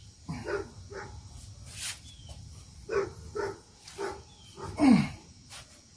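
A man grunting with effort in short bursts, about eight of them, with one louder, falling grunt near the end, as he forces the corner of a rubber weatherstrip down into the hatch channel.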